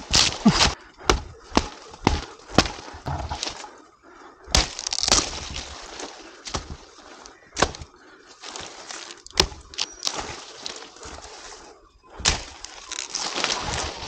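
A machete chopping at coconut palm frond stalks in the crown, with the dry fibrous frond bases cracking and tearing as they are hacked and pulled away. The strikes come at irregular intervals, a dozen or more, with the louder ones about half a second in, around five seconds in and near the end.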